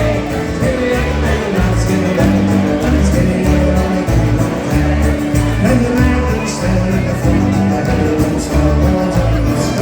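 Live Irish folk band playing with a steady beat, voices joining in at times.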